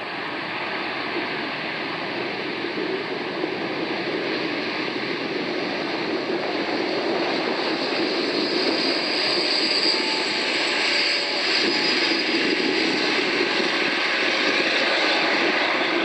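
Boeing 787-8 Dreamliner's jet engines at takeoff thrust during the takeoff roll: a steady jet roar that grows louder as the airliner approaches.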